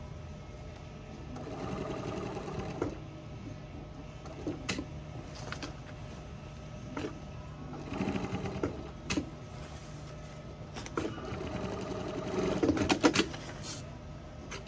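Juki industrial lockstitch sewing machine stitching a name tape onto a camouflage uniform in several short runs. A steady motor hum carries between the runs, and there are several sharp clicks, the loudest near the end.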